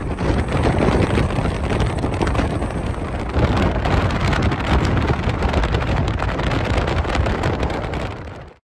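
Wind buffeting the microphone and road noise from a moving car, a steady rough rush heaviest in the low end. It fades out quickly near the end.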